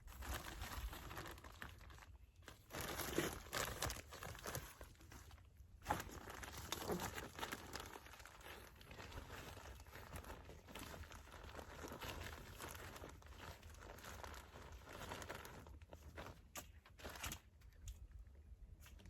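Plastic bag of composted cow manure crinkling and rustling as it is tipped and shaken, the manure spilling out onto the bed's soil. It goes in long stretches with short breaks about two and six seconds in, and ends in a few light rustles and clicks.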